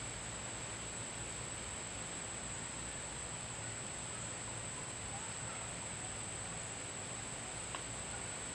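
Steady background hiss with a constant high-pitched whine, and one faint click near the end.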